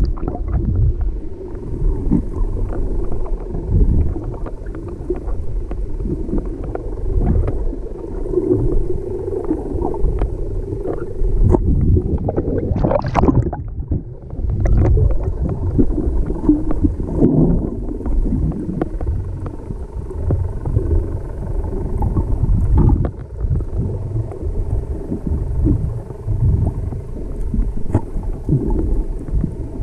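Muffled underwater water noise picked up by a submerged camera: a low, uneven rumble with frequent small knocks and gurgling, and a brief brighter rush about halfway through.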